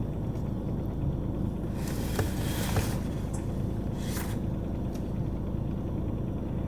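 Steady low rumble of a car heard from inside the cabin, with short bursts of hiss about two seconds in and again about four seconds in.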